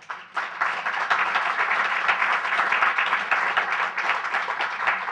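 Audience applauding, starting about a third of a second in and holding steady.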